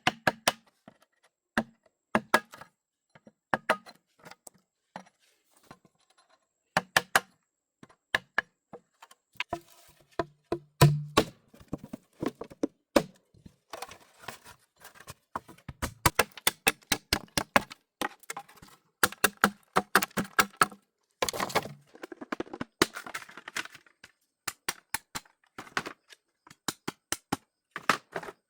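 Irregular series of sharp knocks and cracks from hand-tool work, a few blows landing with a duller thud.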